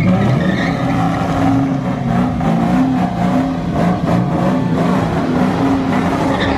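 Ford Mustang's engine held at high revs during a burnout, its spinning rear tyres smoking on the asphalt. The engine note wavers up and down without letting off.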